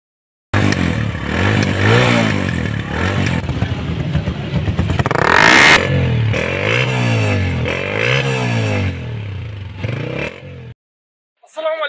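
Motorcycle engine revved repeatedly at the exhaust: the pitch rises and falls about five or six times as the throttle is blipped, then cuts off suddenly near the end.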